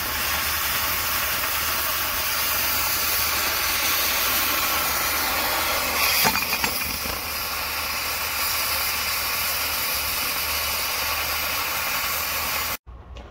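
Track-mounted cutting torch hissing steadily as its jet cuts through thick steel plate, with a brief spell of crackling pops about six seconds in. The hiss stops abruptly near the end.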